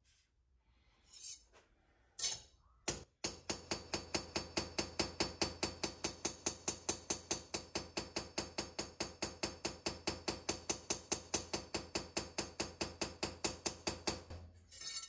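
Carbide straightening hammer tapping a hardened Magnacut chef's knife blade held in a vise: a fast, even run of light strikes, about five a second, each with a bright metallic ring, lasting about eleven seconds after a few clunks as the blade is set. The hammering peens the blade to work a banana-shaped warp out of the hardened steel.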